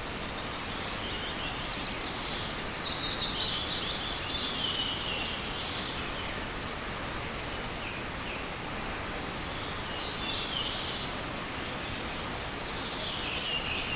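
Small forest river running with a steady rush of water, while a songbird sings a long, high twittering phrase in the first half and two shorter ones near the end.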